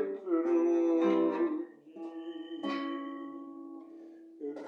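A man singing, holding the last word of a line, then a guitar strummed: a chord rings and slowly fades, and another strum comes near the end.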